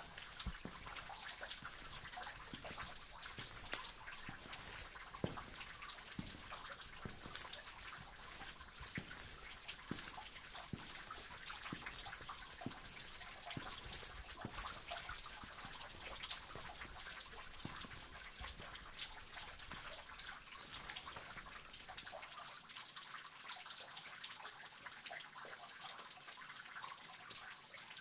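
Water dripping and trickling inside a cave: many separate drops at irregular intervals over a steady trickle of running water. A low rumble underneath drops away near the end.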